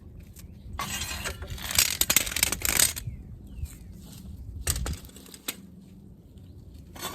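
Metal clattering with sharp clicks from a floor jack and jack stands being worked under a car: a loud rattling stretch early on, single clicks later, and more rattling near the end.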